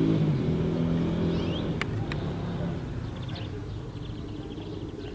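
A low, steady engine hum that fades out after about two and a half seconds, with two sharp clicks near the two-second mark and faint chirps of small birds.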